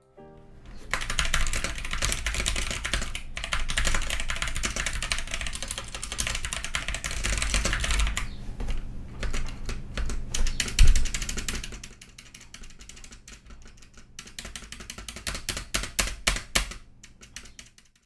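Typing on a Velocifire M87 mechanical keyboard: a fast, dense clatter of key clicks for about the first eight seconds, then slower, sparser keystrokes with a lull in between, and one heavier thump about eleven seconds in.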